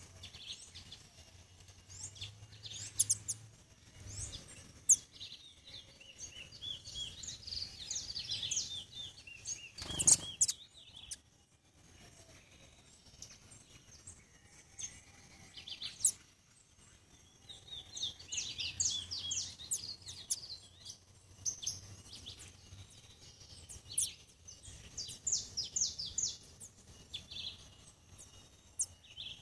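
Small songbirds chirping, many short high calls coming in two busy stretches, with a single sharp knock about ten seconds in.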